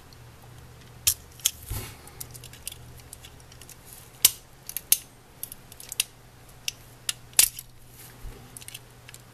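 A small screwdriver prying and tapping at the plastic chassis and trucks of an HO scale Kato SD40-2 model locomotive, making a string of sharp, irregular clicks and ticks over a faint steady low hum.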